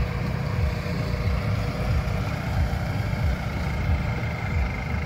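Off-road truck engine running at low revs with a steady rumble, under load as it pulls a stuck SUV on a tow strap.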